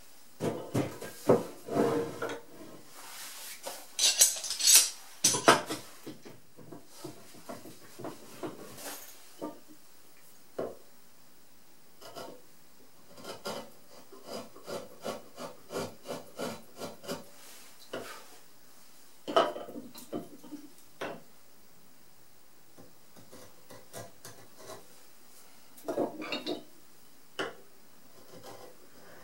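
Hand-pushed carving chisel paring very hard keyaki (Japanese zelkova) wood: runs of short scraping cuts, about two a second. In the first few seconds the wooden workpiece is handled and set down on the bench, with louder knocks and rubbing.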